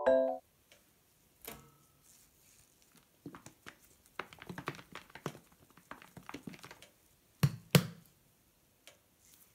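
A short mallet-instrument tune ends within the first half second. Then a plastic squeeze bottle of pancake batter is handled and shaken, a quick flurry of light taps and clicks, followed by two sharper knocks near the end.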